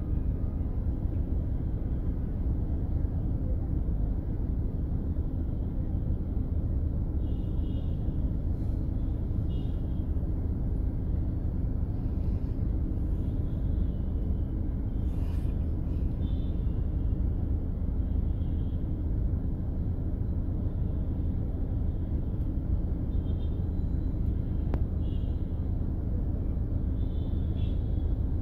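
Steady low rumble of a road vehicle on the move, with short high-pitched sounds coming and going every few seconds.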